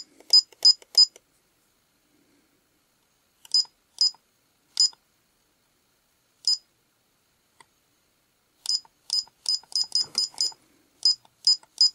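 Button beeps of a Moreximi kids' digital camera: short, identical high-pitched electronic beeps, one per press of its menu buttons. A few come at the start and a few singly in the middle, then a quick run of them from about three quarters of the way in.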